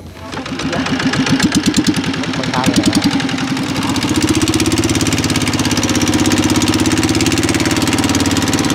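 Boat engine throttled up under load: its firing beat quickens over the first few seconds, then it runs steady and loud at high throttle while pushing the boat.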